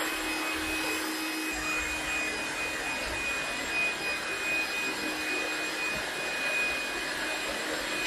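Trifo Lucy robot vacuum cleaner running across a wooden floor: a steady suction hiss with a constant high-pitched whine.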